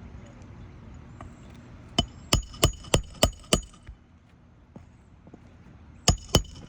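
Sharp metallic blows driving a roofing nail through a shingle repair tool to fasten a replacement shingle: a quick run of six strikes about two seconds in, then two more near the end, each with a short metallic ring.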